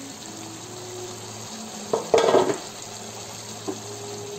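Aluminium pressure-cooker lid clattering against the pot once, about two seconds in, over a faint steady sizzle of brinjals cooking in the pan.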